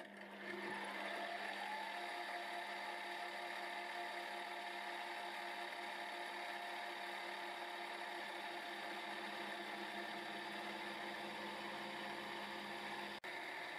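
X3 milling machine running, its home-made involute gear cutter (the number 3 cutter) cutting teeth in a mild steel gear blank: a steady motor whine with cutting noise over it, broken for a moment near the end.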